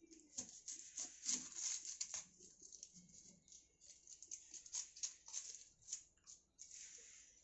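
Dry, papery onion skins crackling and rustling as they are peeled off with a small knife, in faint irregular scrapes with a few light clicks on a wooden cutting board.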